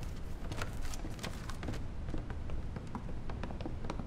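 Footsteps of several people walking on a hard floor, a quick, irregular run of shoe clicks and taps over a low steady rumble.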